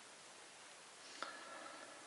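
Near silence: quiet room tone, with one faint click a little over a second in.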